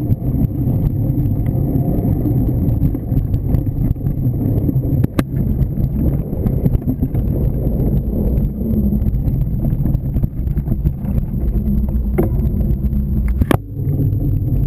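Mountain bike rolling fast over a leaf-covered dirt trail, heard from a camera mounted on the bike: a steady, rough low rumble of tyre and trail vibration, with a sharp knock about five seconds in and a louder one near the end as the bike reaches pavement.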